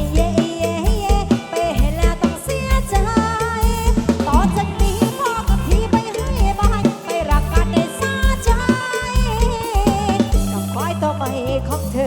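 Live band music from a Thai rot hae sound-truck stage, with a driving drum beat and heavy bass under a wavering lead melody.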